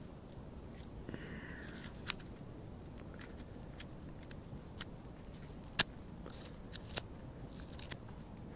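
Gloved hands handling small firecrackers: faint rustling and a scatter of short, sharp clicks as the plastic caps are pulled off and the fuses are twisted together. Two clicks, a little over a second apart in the second half, are the loudest.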